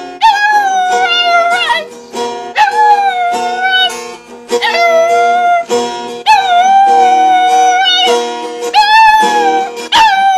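A puppy howling along to a strummed acoustic guitar: about five long, wavering howls, each a second or two, over the guitar's chords.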